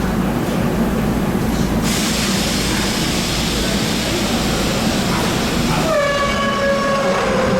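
Subway train running with a steady rumble. A sustained horn-like tone with several overtones comes in about six seconds in and glides slightly down in pitch.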